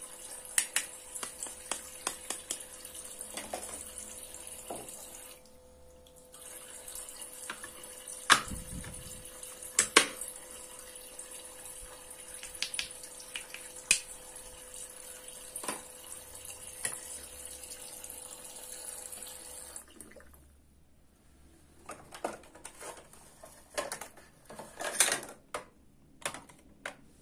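Toy kitchen sink's faucet running a thin stream of water, with a steady hum from its small pump; it stops about two-thirds of the way through. Over it come clicks and taps of a wooden toy knife cutting plastic play fruit and vegetables apart. Near the end, plastic toy parts clatter as they are handled.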